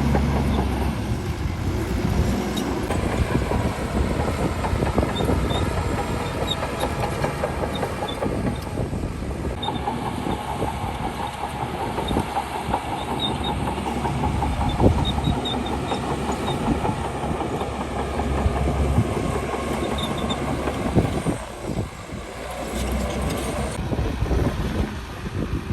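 Crawler bulldozer working: its diesel engine runs under load while the steel tracks clank and rattle. A steady whine joins in for several seconds in the middle.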